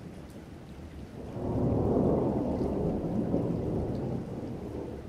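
Rain falling steadily under a long, deep rolling rumble of thunder that swells about a second in and slowly dies away.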